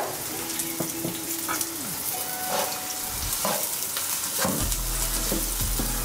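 Freshly chopped onion sizzling as it starts to fry in hot oil in a non-stick wok, with a spatula stirring and scraping through it in the second half.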